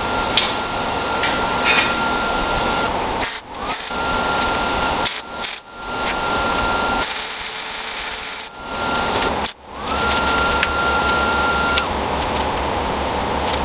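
An electric power tool running in several bursts with a steady whine. It stops about three times and spins back up with a rising whine each time it restarts. There is a brief harsher hiss about midway.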